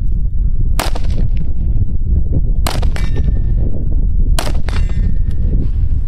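Three 5.56 rifle shots from an AR-15 with a 20-inch barrel, firing M855 green-tip rounds into an AR500 steel plate, spaced about two seconds apart. Each is a sharp crack, and after the second and third the steel rings with a brief metallic clang.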